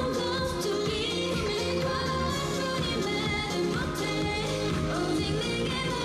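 K-pop dance track playing: female vocals sung over a steady, driving beat.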